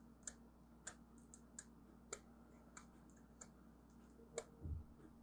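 Faint, irregular clicks and ticks of a thin metal pick scraping hardened glue and solder residue off the battery pads inside an original iPhone, about seven sharp clicks roughly every half-second to second, with a soft low bump near the end.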